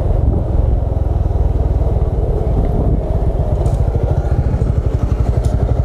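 Small motorcycle engine running steadily at low speed while riding, heard close up, with a fast, even pulsing note.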